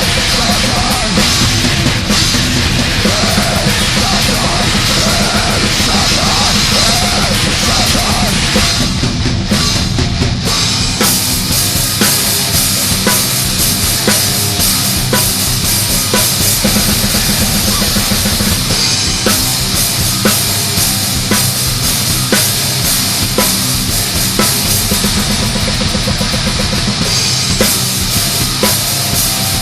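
Black/death metal song from a demo tape, with distorted guitars and fast drumming. The arrangement shifts about nine to eleven seconds in, into a section driven by rapid, evenly spaced drum hits.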